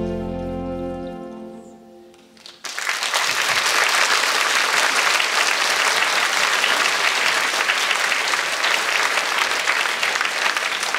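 The band's closing chord, double bass low underneath, sustains and fades away over the first two seconds. A little over two seconds in, the audience breaks into applause, which goes on steadily.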